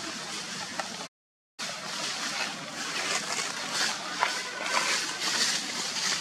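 Dry fallen leaves rustling and crackling under a walking macaque, with scattered sharp crackles. The sound cuts out completely for about half a second a little over a second in.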